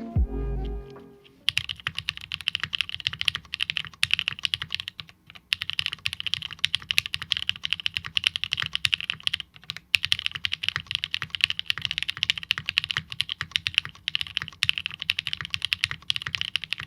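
Fast typing on a Nascent 65% plateless, leaf-spring-mounted mechanical keyboard with NK Cream switches and GMK keycaps: dense runs of key clacks with a few brief pauses. A little music fades out just before the typing starts.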